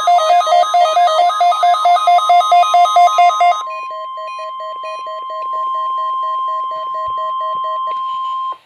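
NOAA Weather Radio's steady 1050 Hz warning alarm tone, with weather radio receivers' alarms beeping rapidly over it. The loudest receiver's two-pitch beeping stops about three and a half seconds in. A softer beep keeps on until the tone cuts off near the end, just before the test announcement.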